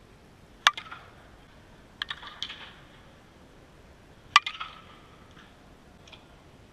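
A softball struck twice by a Louisville Slugger Super Z slowpitch bat, a sharp crack a little under a second in and again a little over four seconds in, each followed by a brief ring and echo. A short clatter of lighter knocks comes a little after two seconds.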